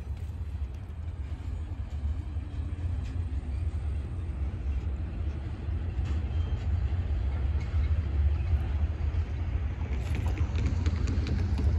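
Low, steady rumble of a loaded rock train's freight cars rolling away on the rails, with a few light clicks near the end.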